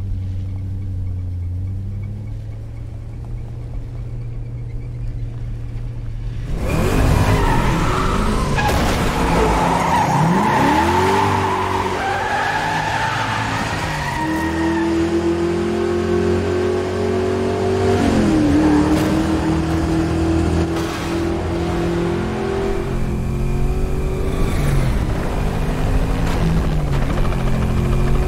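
A Chevrolet Chevelle's V8 idling with a low rumble, then, about six and a half seconds in, revving hard as the car pulls away. The engine note climbs and drops several times through the gears, and tyres squeal through the turns.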